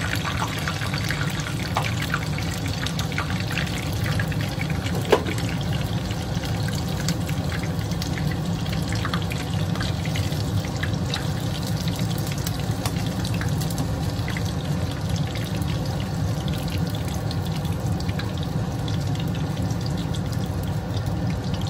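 Chicken karaage deep-frying in hot oil: a steady sizzle with scattered small crackles and pops, one sharper pop about five seconds in, over a steady low hum.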